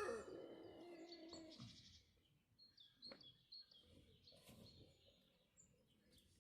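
The tail of a rooster's crow, sliding down in pitch and fading out in the first moments, followed by faint, scattered bird chirps.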